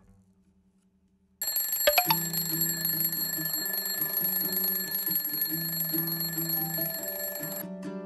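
Twin-bell quartz alarm clock ringing: its hammer rattles rapidly between the two metal bells in a loud, continuous ring that starts about a second and a half in and cuts off suddenly near the end. Background music plays underneath.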